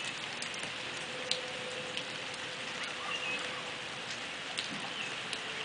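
Steady rain falling, an even hiss broken by scattered sharp drips and taps of raindrops landing.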